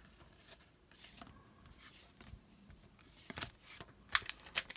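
Trading cards and a foil card-pack wrapper being handled: faint rustling and small clicks, with a few sharper crackles near the end.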